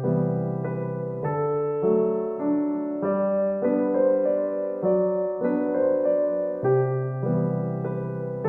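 Background piano music: a slow, gentle piece of notes struck one after another at an even pace over changing bass notes.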